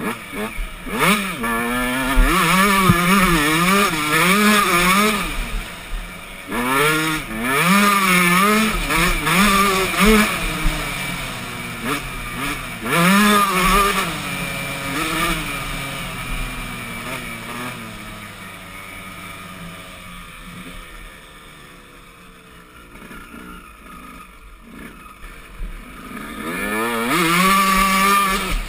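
Dirt bike engine revving up and down as the rider works the throttle along the trail. About halfway through it eases off and runs quieter for several seconds, then revs up hard again near the end.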